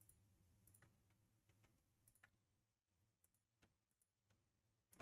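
Near silence: room tone with a few very faint scattered clicks.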